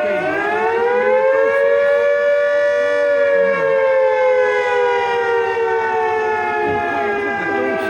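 Chatham Dockyard air raid siren wailing: its pitch dips briefly, climbs for about three seconds, then slowly falls.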